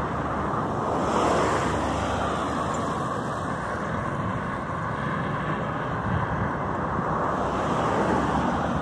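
Road traffic on an avenue: a steady noise of cars passing, swelling as vehicles go by about a second in and again near the end.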